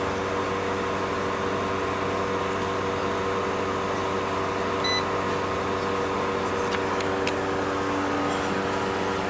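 Steady machine hum with several even tones, with a very short faint beep about five seconds in and a few light clicks around seven seconds.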